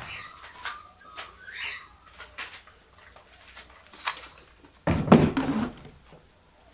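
Handling noise from the brushcutter with its engine off: scattered light clicks and a few faint high chirps, then a louder clattering rustle with dull knocks about five seconds in as a hand takes hold of the trimmer.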